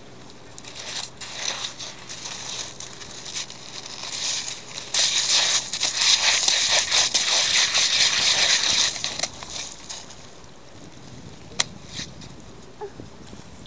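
Dog digging in gravel and sand, its paws scraping and crunching through the pebbles in spurts. The digging is heaviest in the middle and dies down after about ten seconds, and a single sharp click follows.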